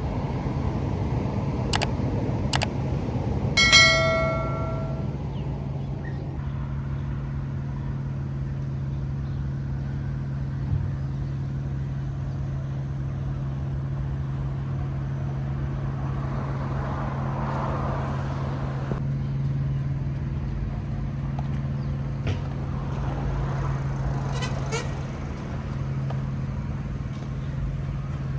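Steady low hum of distant road traffic. About four seconds in, a short ringing tone sounds and dies away.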